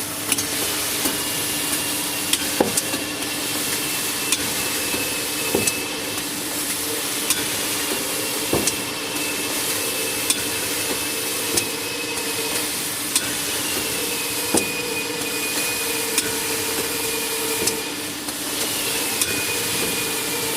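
Paper-roll band saw cutting machine running: a steady hiss over a motor hum, with a high whine that slowly sinks in pitch and jumps back up about three times. Sharp clicks or knocks come every second or two.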